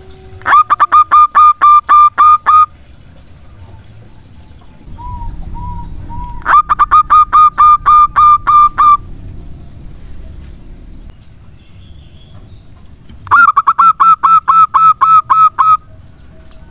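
Zebra dove (perkutut) calling: three loud bouts of rapid, evenly spaced cooing notes, about four a second, each bout lasting about two seconds, with a few softer coos between the first two bouts.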